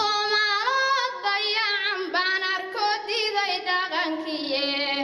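A young woman chanting a Somali gabay (oral poem) in a sung, drawn-out voice, holding notes that bend and slide in pitch, phrase after phrase with short breaths between.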